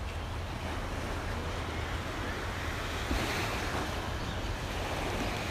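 Lake waves washing ashore, with wind rumbling on the microphone. A slightly louder wash comes about three seconds in.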